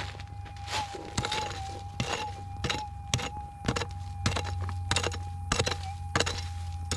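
Repeated strikes of a digging tool into the ground, about one every half second, over the steady, slightly wavering threshold tone of a Minelab GPX 6000 gold detector.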